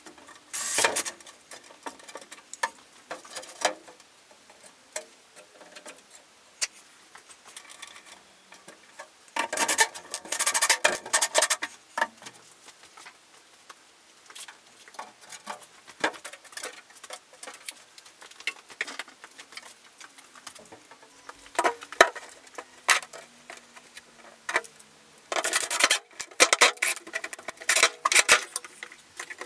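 Shop work on a polycarbonate roof sheet: irregular clicks, taps and scraping as the sheet and screws are handled, coming in several bursts of a few seconds. Near the end a cordless drill-driver drives a screw through a wooden batten into the sheet.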